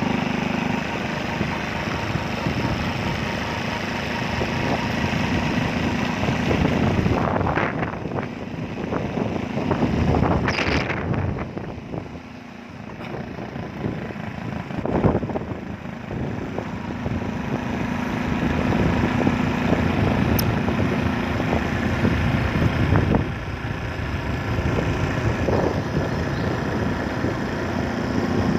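A vehicle engine running steadily while driving along, with road and wind noise, easing briefly about twelve seconds in.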